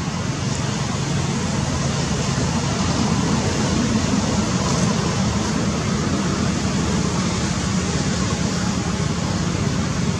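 Steady, even rushing noise with a low hum underneath, unchanging throughout.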